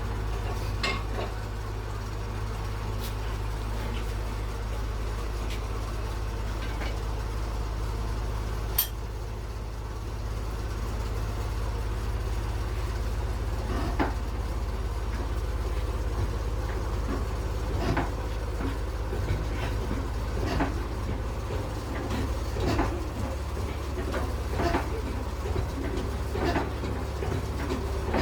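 Old 22 HP black diesel engine running steadily, driving a flour mill (atta chakki), with a low, even drone. Scattered metallic clinks and knocks sound over it, more often in the second half.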